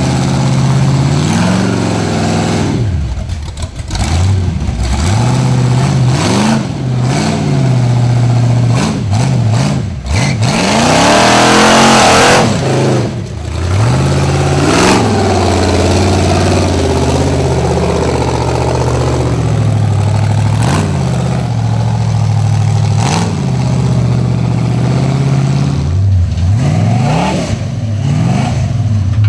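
Rock buggy engines idling and revving in repeated quick blips, the pitch rising and falling as the buggies climb a steep rock ledge trail under load. There is one long hard rev about eleven seconds in.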